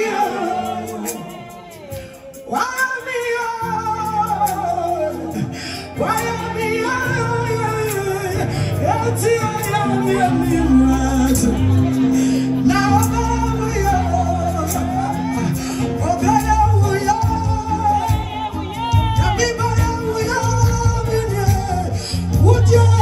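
Ghanaian gospel song sung with band backing; a bass line comes in about four seconds in.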